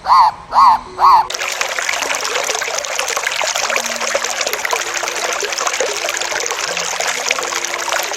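The last three of a run of quick, evenly spaced animal calls, each rising and falling in pitch. About a second in they give way to a steady rush of trickling, splashing water.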